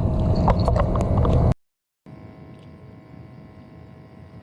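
Loud rough rumbling with scattered clicks, cut off abruptly about a second and a half in; after a brief gap, a quiet steady background hiss with a faint hum.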